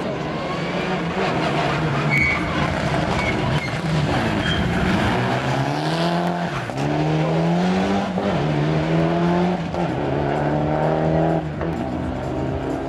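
Mitsubishi Lancer Evolution rally car's turbocharged four-cylinder engine revving hard as it drives past, its pitch climbing and dropping several times with gear changes and throttle lifts.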